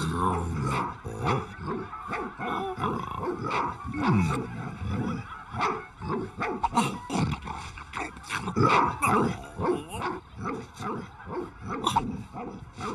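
A dog barking and growling again and again, in short, irregular barks.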